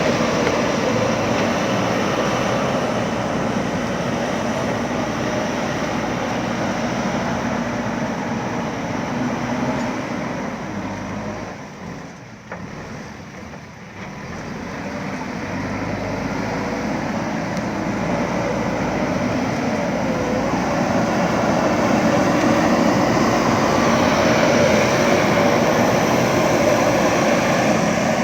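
JCB backhoe loader's diesel engine running under load. It drops away about twelve seconds in, then builds back up and is loudest near the end.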